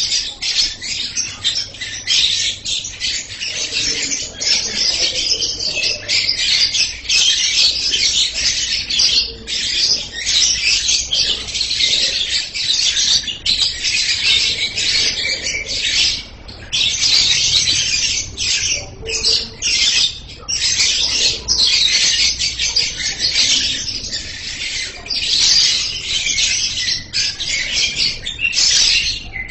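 Lovebird singing in a long, shrill, nearly unbroken chatter, pausing only briefly a few times.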